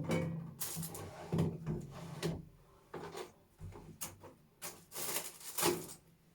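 Household objects being picked up, moved and set down while tidying a room: a run of irregular knocks, clatters and rubbing scrapes, some of them on wood.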